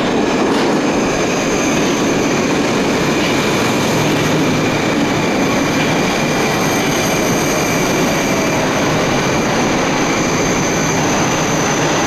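Moscow Metro train pulling into the station and running along the platform as it slows. Its steady, loud rumble of wheels and running gear has a thin high-pitched squeal from the wheels running through it.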